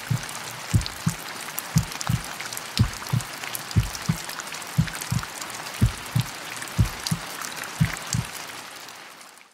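Rain dripping off a ledge: a steady hiss of rain with separate drops landing about twice a second. It fades out near the end.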